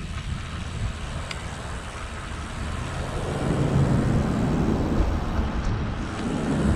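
Wind buffeting the microphone of a camera riding along on a road bike, a low, uneven rumble that grows stronger about three seconds in.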